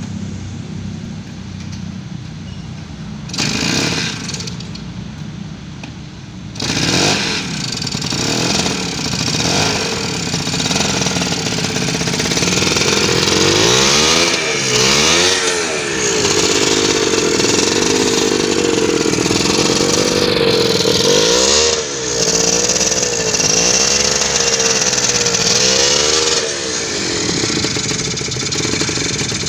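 Harley-Davidson AMF 125's two-stroke single-cylinder engine idling, then revved with the throttle: two short blips, then from about a third of the way in a long run of repeated revs, the pitch rising and falling again and again, before it drops back to idle near the end.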